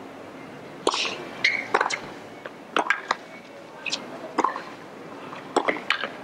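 Tennis ball being struck back and forth with rackets and bouncing on a hard court during a baseline rally: a string of sharp pops roughly every half second to a second.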